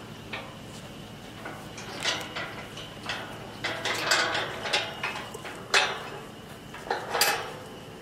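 Steel corral panels being set up and fastened together: irregular metal clanks and rattles, heaviest about two to five seconds in, with the sharpest clank near six seconds.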